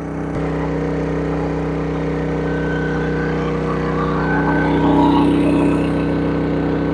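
Genmax GM7250 inverter generator's 312 cc four-stroke OHV engine running steadily at full output while powering a 5-ton air conditioner. It is not straining; it sounds like it's running real good.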